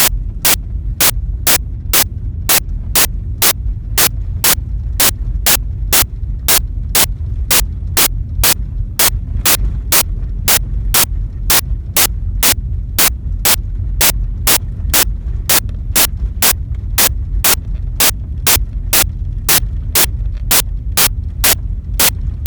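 Sharp clicks repeating evenly about twice a second over a steady low rumble.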